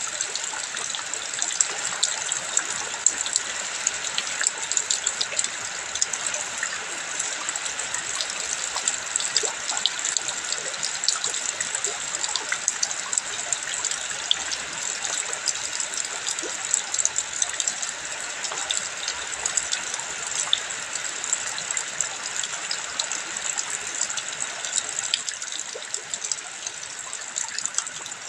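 Running water: a steady rushing splash with many small drops and spatters through it.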